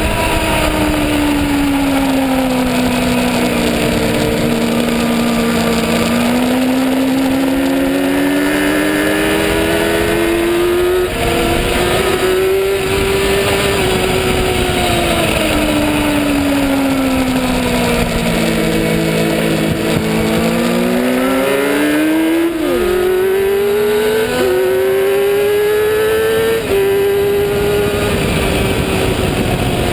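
A racing motorcycle's engine heard from a camera on the bike itself, over steady wind rush. The revs fall, climb, fall again and climb once more, with the pitch breaking at gear changes, several of them in the last third.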